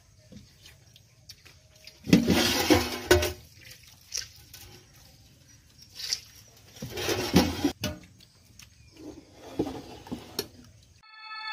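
Thin curd sauce being ladled and poured with a steel ladle, splashing in three bursts, with a few light metal clinks.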